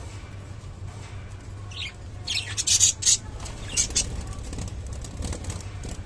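Budgerigars chirping: a cluster of short, harsh chirps about two to four seconds in, over a steady low hum.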